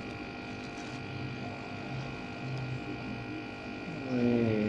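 A steady hum made of several constant tones. About four seconds in, a short pitched sound falls in pitch.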